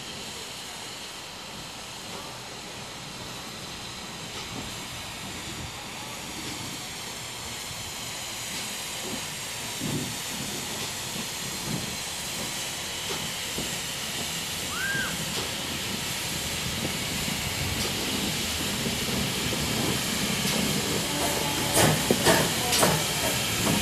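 GWR 0-6-0 pannier tank steam locomotive 3650 moving slowly, with a steady hiss of steam that grows louder as it comes closer. Near the end comes a quick run of sharp metallic knocks.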